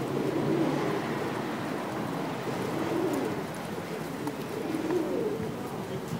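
Feral city pigeons (Columba livia domestica) cooing, a series of low, repeated coos.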